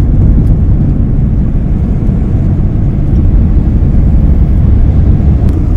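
Steady low rumble of a car driving on the highway: engine and tyre noise with no breaks.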